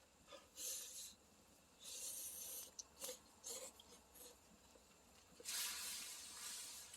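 Someone slurping hot instant ramen noodles: a few short, faint airy slurps, the longest a little over a second near the end, with light clicks in between.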